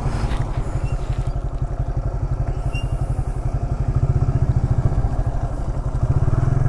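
Motorcycle engine running at low speed, its exhaust pulsing fast and evenly, getting a little louder about four seconds in.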